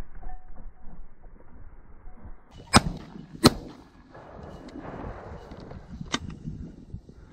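Two shotgun shots in quick succession, under a second apart, fired at a flushing pheasant.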